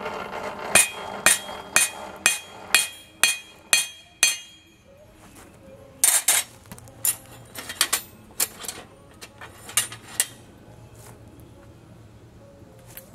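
Blacksmith's hammer striking metal on an anvil. It begins with a steady run of about eight ringing blows, two a second, and after a short pause comes a looser series of lighter strikes.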